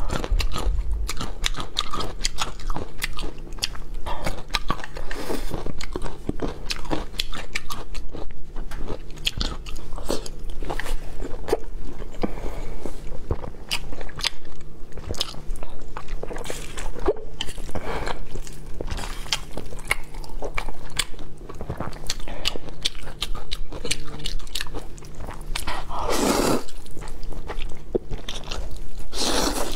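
Close-miked chewing and biting of spicy instant noodles and century eggs: a steady run of wet mouth clicks and smacks. Near the end come two long noodle slurps.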